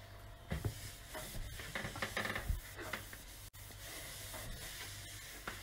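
Microfibre cloth rubbing over a stainless steel gas cooktop in uneven wiping strokes, buffing the steel with polish. There is a brief break about three and a half seconds in.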